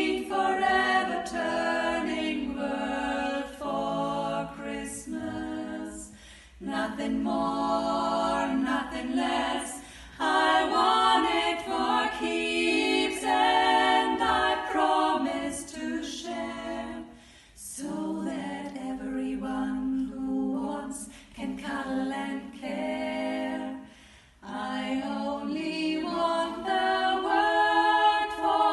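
Female vocal group singing a cappella in close harmony, several voices together in phrases broken by brief pauses about four times.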